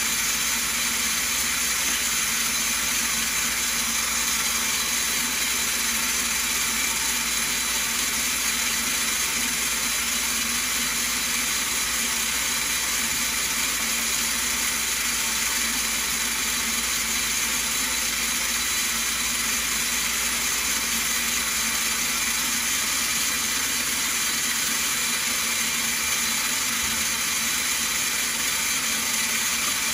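Stone bead milling machine running: rough stone beads spinning and bouncing against the rotating grinding disc inside the steel drum, fed with running water. A steady, even hissing grind with no breaks.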